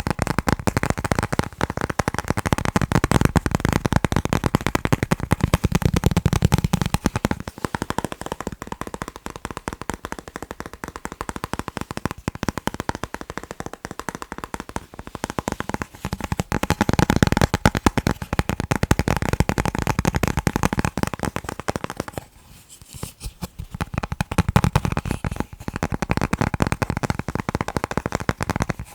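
Fingers tapping fast on chocolate, a rapid, crisp patter of taps with a short pause about three quarters of the way through.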